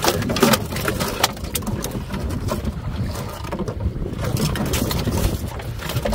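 Wind buffeting the microphone and water noise on a small open fishing boat, with a steady low rumble, broken by several sharp knocks and thuds as a stingray and its line are hauled onto the wooden deck and handled.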